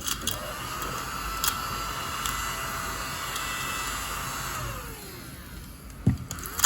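Deli mini desktop vacuum cleaner, a small battery-powered motor, running with a steady whine and a few light ticks as it sucks up bits of paper. About four and a half seconds in it is switched off and the whine falls in pitch as the motor spins down, followed by a couple of knocks near the end.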